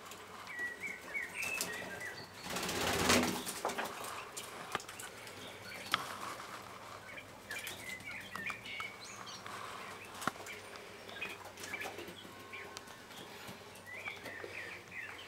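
Quails flapping their wings in a short, loud burst about two to three seconds in, with soft chirping calls coming and going and a few sharp clicks.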